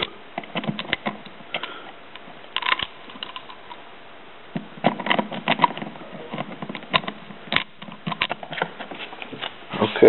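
Hand screwdriver turning out the screws of a plastic light-switch cover plate: irregular small clicks and scrapes of the metal bit on the screw heads, with a pause partway through.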